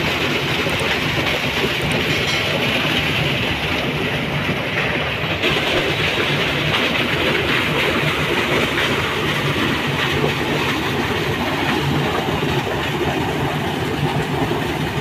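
Steady rumble and rattle of a moving vehicle, heard from on board.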